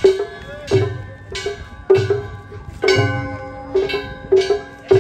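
Festival float hayashi: hand-held metal gongs (kane) struck hard in a steady beat, each sharp stroke ringing on, with taiko drum thumps underneath.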